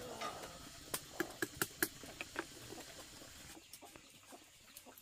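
Chickens clucking: a quick run of about six short, sharp calls between one and two and a half seconds in.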